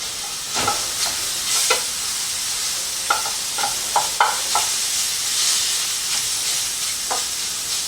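Shredded beef sizzling as it fries in a skillet, with a utensil scraping and tapping against the pan several times as the meat is stirred and broken up.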